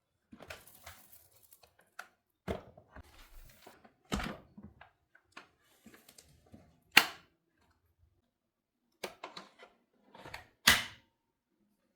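Things being handled and set down: scattered clicks, rustles and knocks, with two sharp knocks, one about seven seconds in and a louder one near the end.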